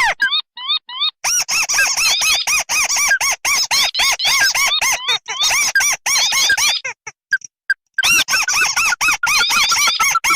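Recorded crake calls played as a bird lure: a fast, even run of short, arched, squeaky notes that breaks off about seven seconds in and starts again a second later.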